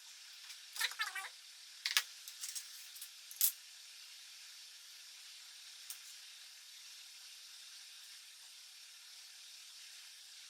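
Small handling clicks and light rattles, several in the first few seconds and one more about six seconds in, over a steady hiss.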